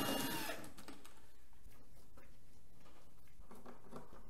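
A power drill whirring briefly and stopping about half a second in, followed by light scattered clicks and taps of small parts being handled.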